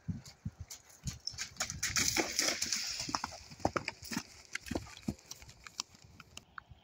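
Hoofbeats of a ridden horse cantering past on grass, with a hiss as it goes by; loudest about two to three seconds in, then fading as the horse moves away.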